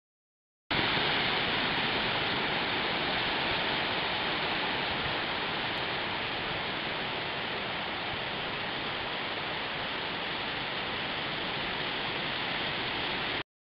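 Ocean surf breaking and washing up on a beach: a steady rush of noise that starts suddenly about a second in and cuts off sharply near the end.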